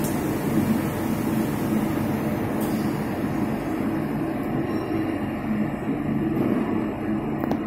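Cincinnati Milacron 1000 CNC vertical machining centre running with a steady hum of several low tones while its axes are referenced.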